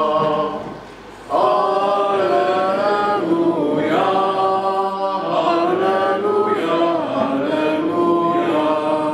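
A man chanting a liturgical text from a book, in long held notes grouped in slow phrases, with a short pause for breath about a second in.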